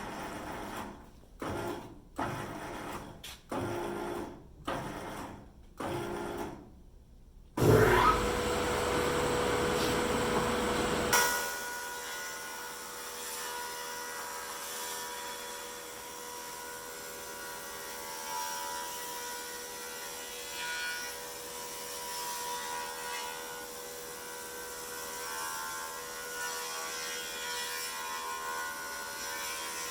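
Thickness planer with a powered digital height setting: about six short motor bursts as the head is jogged down to its setting. Then the planer starts and cuts the incense cedar board loudly for about three seconds, and after that runs steadily with a humming tone and no load.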